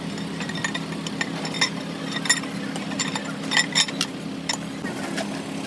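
Metal tools and engine parts clinking and tapping against each other at irregular moments, over a steady low hum.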